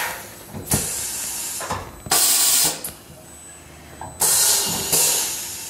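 Tormach 1100MX CNC mill starting its program: four loud bursts of hiss, each about a second long or less, starting and stopping abruptly.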